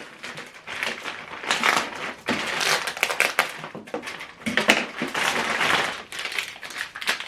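Packaging crinkling and rustling in irregular bursts as accessories are unwrapped and handled.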